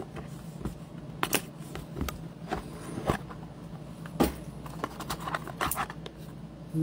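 Leaf Electrum baseball card box being handled and opened by hand: scattered taps, clicks and scrapes of cardboard as the box and its insert are opened and a card is lifted out, with a quicker cluster of ticks near the end. A low steady hum sits underneath.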